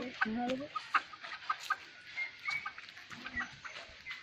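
Chickens clucking and cheeping. A lower call comes in the first half-second, then short, scattered high peeps follow.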